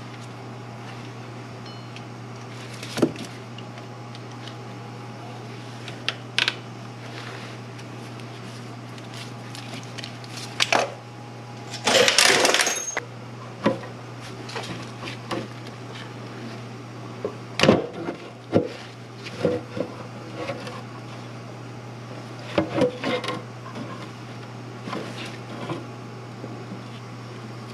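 Hand tools and parts clinking and knocking in a car's engine bay as power steering pump hoses are worked loose, with one longer, louder clatter about halfway through. A steady low hum runs underneath.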